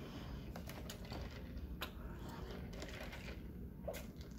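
Faint close-up chewing: soft, irregular wet mouth clicks and smacks. Near the end comes a sip from a foam cup.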